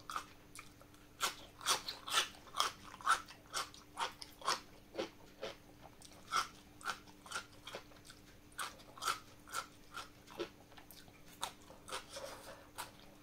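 A person chewing crunchy vinegar-marinated cabbage: crisp crunches come about twice a second, with a short pause midway.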